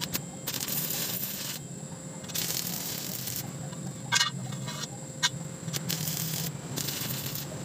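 Stick (arc) welder crackling and hissing in four short bursts of about a second each as a steel rod is welded onto a steel pipe, with a quick cluster of sharp clicks near the middle, over a steady low hum.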